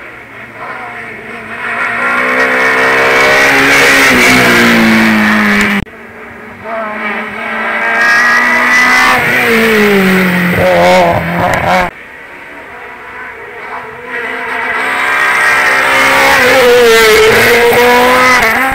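Three hillclimb race cars in turn, each engine revving hard as it accelerates up the road past the microphone. The pitch climbs and drops at the gear changes, and each car is loudest as it passes close by. The sound breaks off suddenly twice, about six and twelve seconds in, as one car gives way to the next.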